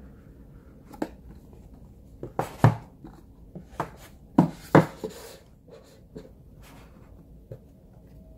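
Cardboard phone box being opened by hand: the lid sliding off and the box parts knocked and set down on a table, a series of light knocks and scrapes, busiest in the first half.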